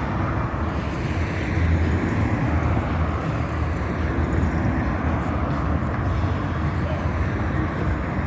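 Steady rumble of road traffic, vehicles passing along a city street.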